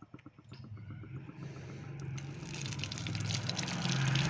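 Ghee being poured into a kadhai: a trickling hiss that starts about two seconds in and grows steadily louder, over a low steady hum.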